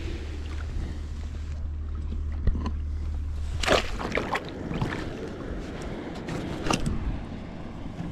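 Water sloshing and splashing around a sea kayak, with several sharp knocks, over a steady low rumble that stops about halfway through.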